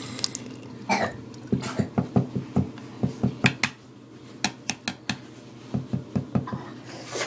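Irregular run of short knocks and clicks, some in quick clusters, as a small plastic toothbrush is handled and rinsed at a bathroom sink.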